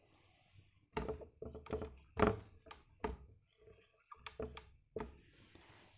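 A quick, irregular run of soft thumps and taps, about a dozen in all, the loudest a little over two seconds in.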